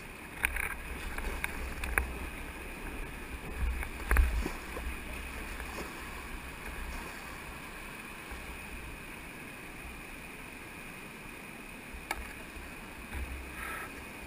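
Whitewater kayak being paddled down a rapid: a steady rush of moving water, with sharp knocks and splashes from paddle strokes, the loudest about four seconds in, over a low rumble.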